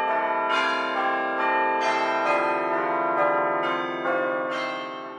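Bells ringing in a peal, a fresh strike about twice a second over long ringing tones, fading out near the end.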